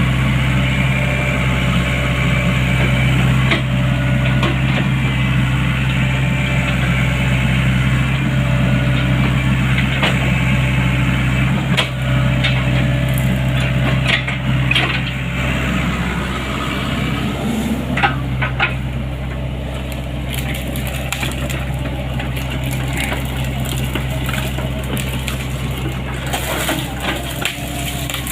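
Diesel engine of a Sany excavator running steadily, with scattered sharp clanks and knocks, most of them in the middle of the stretch. The engine note drops a little just past halfway.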